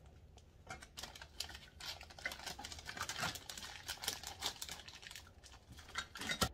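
Faint, irregular crinkling and light tapping of clear cellophane treat bags being handled and tucked into place on a tiered tray, with a sharper click near the end.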